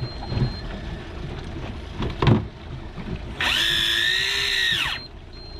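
A small electric motor whines for about a second and a half, its pitch rising as it spins up and dropping as it stops. A sharp knock comes a little over two seconds in.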